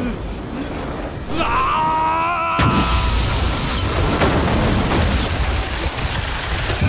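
A wavering pitched tone, then about two and a half seconds in a sudden explosion that carries on as a heavy low rumble.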